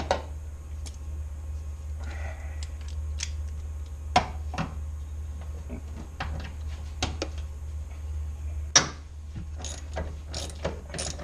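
Hand tools clicking and knocking against metal as the door hinge fasteners are worked loose, in scattered sharp clicks with two louder knocks, one about four seconds in and one near the end, over a steady low hum.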